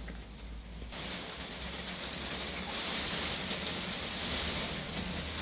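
Very heavy rain falling on a shed roof, a steady hiss that grows louder about a second in.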